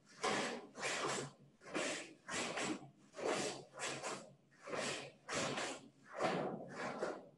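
Sharp, forceful exhalations from a karateka working at full speed through punches and kicks, coming in quick bursts about twice a second, often in pairs.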